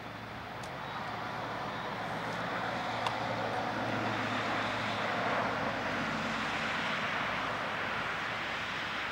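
A vehicle going past, its noise swelling to a peak about five seconds in and then slowly fading, over a low steady hum.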